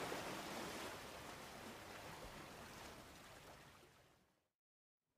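Faint, even hiss of wind and choppy water on open sea, fading out and cutting to silence about four and a half seconds in.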